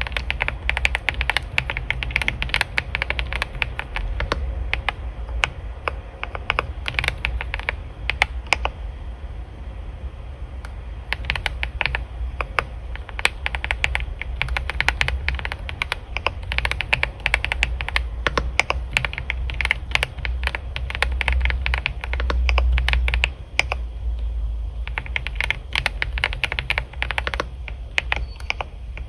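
Computer keyboard typing in fast, continuous runs of key clicks, with short pauses between bursts. A low hum runs underneath and grows louder for a moment about three quarters of the way through.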